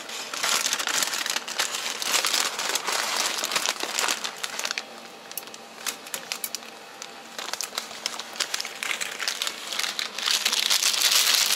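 A paper bread bag crinkling and rustling as a bread roll is picked up with metal tongs and put into it, with scattered small clicks and the crinkling loudest near the end.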